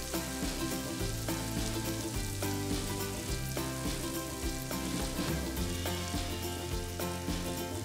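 Hot baked BBQ chicken pinwheels sizzling on a parchment-lined baking tray fresh from the oven, their melted cheese and garlic butter crackling with many small pops.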